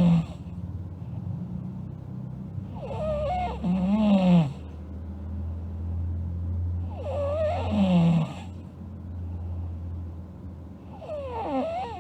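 A sleeping girl snoring, one snore about every four seconds, each a rough breath carrying a wavering tone. A low steady hum runs underneath.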